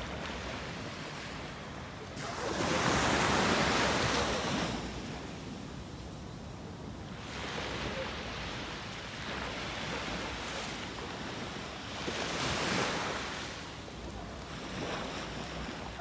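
Small waves breaking and washing up on a sandy shore, the surf swelling and fading every few seconds, loudest a few seconds in.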